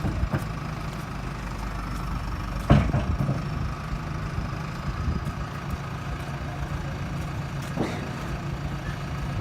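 JCB backhoe loader's diesel engine running steadily at low revs, with a sharp clank about three seconds in and a fainter knock near the end.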